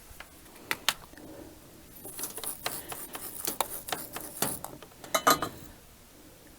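Small metal tools and parts handled on a workbench: a couple of sharp clicks, then a few seconds of rustling and light clinking, ending in a louder cluster of clicks.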